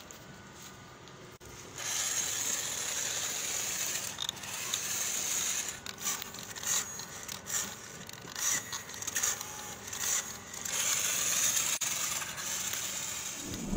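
Homemade cardboard RC truck driving over gritty concrete: its small electric motor whines high while the tyres scrape and crunch over grit, with scattered clicks. It starts about two seconds in and rises and falls in loudness as the truck moves.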